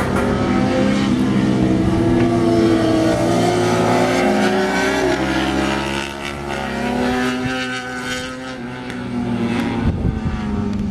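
Several sport motorcycles racing past on a circuit, their engines revving hard through the gears, several engine notes rising and falling over each other. The sound eases a little about halfway through, and another pack passes near the end.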